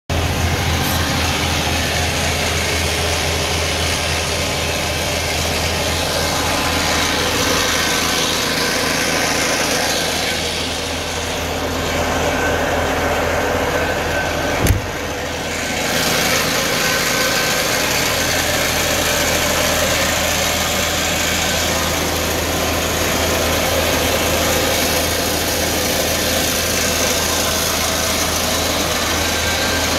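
Heavy truck's diesel engine idling steadily, with a single sharp knock about halfway through.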